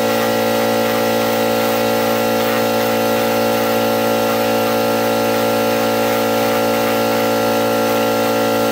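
Dremel rotary tool running at steady speed, a constant whine, its sanding drum grinding down the clear epoxy coat on a wooden board to cut out an air-bubble flaw.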